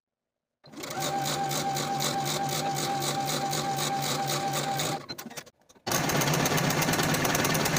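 Sewing machine stitching a seam at a steady rhythm for about four seconds. After a short pause, a Singer ProFinish serger runs with a faster rhythm, overlocking the seam's raw edges.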